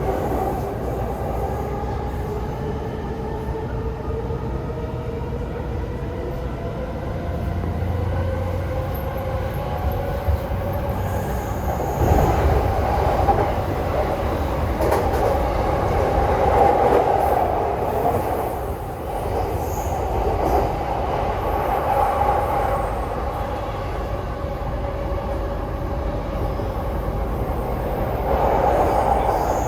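Inside a Chuo Line rapid electric train (E233 series) running on the line: a steady rumble of wheels and car body, with a motor whine of a few tones that shift slowly in pitch, louder for several seconds around the middle.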